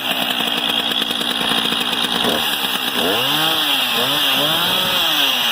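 Two-stroke chainsaw engine running loud, revved up and let back down several times in the second half, its pitch rising and falling with each blip.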